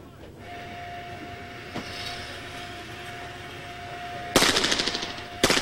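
A steady mechanical whine, then two pistol shots about a second apart near the end, fired at a moving target.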